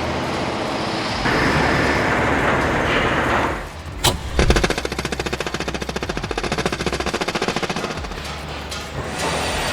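Construction-site noise: a steady rushing for the first few seconds, a single sharp knock about four seconds in, then a power hammer striking rapidly and evenly for about four seconds.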